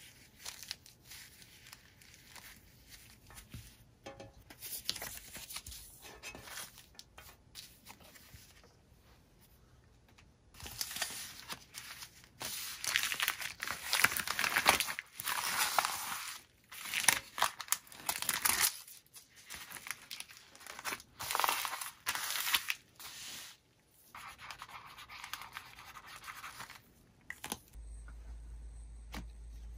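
Packaging being handled: soft rustling at first, then from about ten seconds in a run of loud, irregular tearing and crinkling bursts that ease off near the end.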